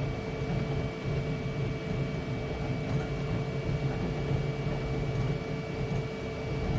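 Flashforge Adventurer 5M Pro 3D printer running mid-print: a steady hum of fans and motors with two constant whining tones.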